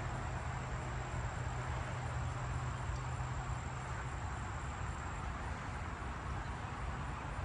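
Insects trilling, with a thin high steady trill that fades out about five seconds in, over a steady low hum and a general wash of background noise.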